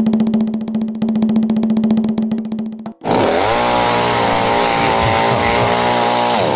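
A fast snare drum roll that cuts off about three seconds in, followed at once by a two-stroke chainsaw running at high revs, its pitch dropping as it eases back near the end.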